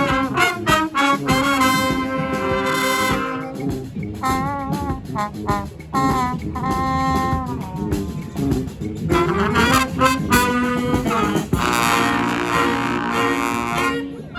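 Brass band playing live: horns sounding held notes and short phrases together over percussion.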